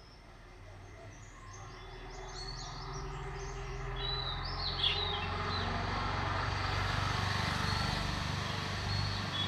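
Small birds chirping in short calls through the first half, under a broad rushing noise with a low hum that swells from about two seconds in and is loudest in the second half.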